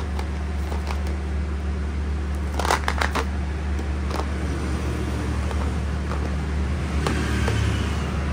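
Bubble wrap and plastic sweet boxes crinkling and crackling as they are picked up and handled, with a cluster of sharp crackles about three seconds in, over a steady low hum.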